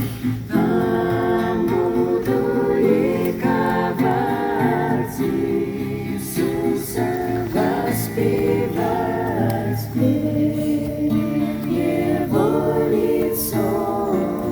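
A group of voices singing a Christian hymn together in long held notes.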